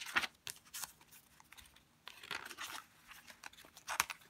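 Paper pages of a handmade junk journal being turned and handled: a run of short rustles and crinkles, the sharpest about four seconds in as a flap is lifted.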